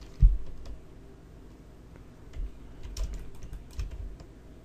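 Computer keyboard keys tapped now and then, a few scattered clicks from about halfway in, with one low thump just after the start, the loudest sound.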